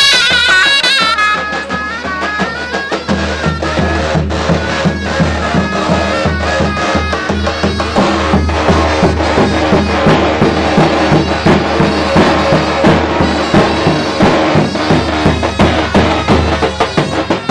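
Davul and zurna playing Turkish folk music: the zurna's reedy, ornamented melody over dense, rhythmic strokes of the davul bass drum, whose low beat grows heavier about three seconds in.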